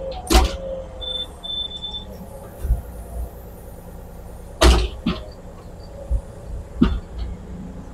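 Excavator's diesel engine running steadily, with sharp knocks and clanks from the boom and bucket as it reaches for the concrete porch pad; the loudest knock comes a little past halfway, and two short high beeps sound about a second in.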